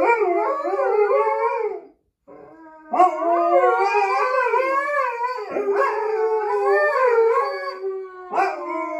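Two Alaskan Malamutes howling together in long, wavering howls. The howling breaks off briefly about two seconds in, then starts again at about three seconds and carries on.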